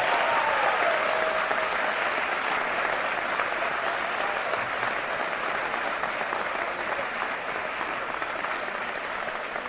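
Audience applauding at length, loudest at the start and slowly dying down, with a few cheering shouts in the first second or so.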